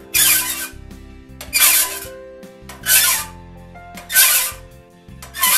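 Five slow strokes of a hand file rasping across a crosscut saw's raker tooth, about one every second and a quarter. The raker is being dressed down flush with the hardened plate of a raker depth gauge to set its depth.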